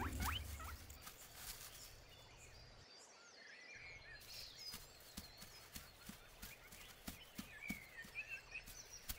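Faint outdoor ambience with a few high bird chirps, more of them from about halfway on, and scattered soft ticks.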